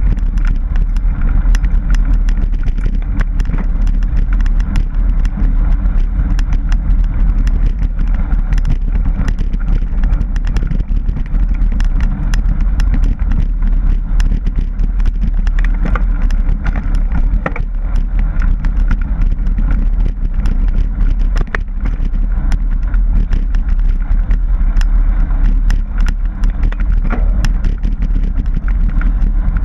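Mountain bike riding a rough dirt trail, heard through a bike-mounted camera: a heavy, steady low rumble of wind and trail vibration with constant small clicks and rattles from the rough ground.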